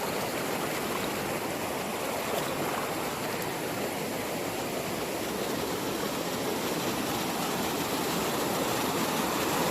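Rushing water of a mountain waterfall and its stream: a steady, even rush that grows slightly louder near the end.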